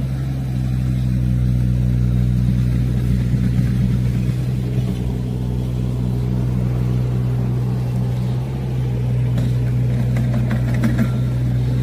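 An engine running at a steady speed, a constant low drone.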